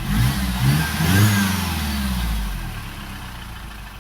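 R56 Mini Cooper's N12 1.6-litre four-cylinder engine, worn to piston slap, revved up and down a few times in quick blips, then falling back toward idle about two and a half seconds in.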